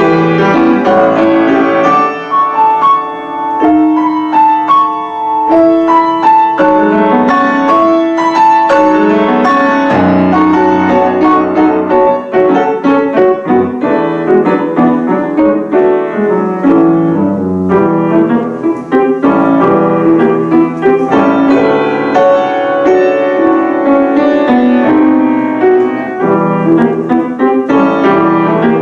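Piano four hands playing classical music: a continuous flowing passage of many overlapping notes.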